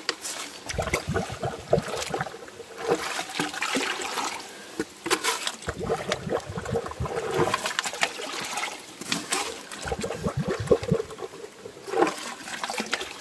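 Water splashing and sloshing as a hand scoops and stirs in a small mineral-spring basin, priming it to get the spring flowing, with water trickling.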